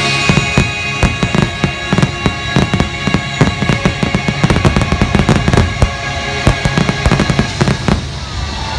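A rapid finale barrage of fireworks: dozens of sharp bangs in quick succession over loud show music with sustained chords. The bangs thin out near the end.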